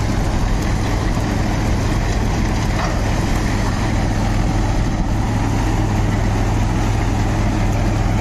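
The about 4-litre diesel engine of a Sonalika Tiger DI 55 tractor runs steadily at low rpm under heavy load. The straw reaper it drives adds a dense, even machinery noise over the engine's low hum.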